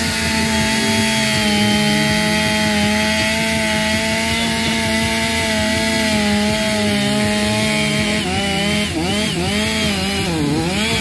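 Two-stroke chainsaw running at high revs, steady for most of the time, then its pitch dips and rises several times near the end as the chain bites into the wood under load.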